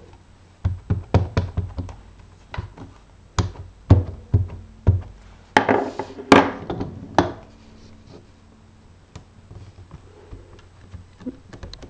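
A quick run of light taps and clacks, thicker in the first five seconds, with a few louder knocks around six seconds in and quieter after: a rubber stamp being inked on an ink pad and pressed down with the Stamparatus stamp-positioning tool.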